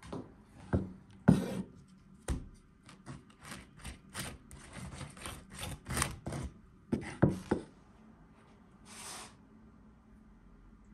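A wooden spoon scraping and tapping as sauce is spread on burger bun halves on a wooden board, a run of light knocks and rubs that dies away after about seven seconds, followed by one brief soft swish.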